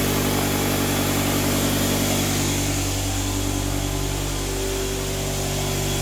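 Electric air compressor running steadily, its motor and pump giving an even hum just after starting up.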